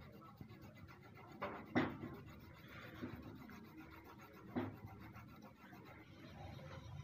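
Faint scratching and rubbing of colored pencil shading on cardboard paper, broken by a few sharp knocks, the loudest just under two seconds in.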